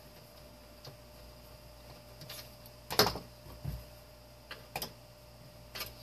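Scattered clicks and knocks of hand tools and parts of a space heater being handled while it is pried apart, with one louder knock about three seconds in.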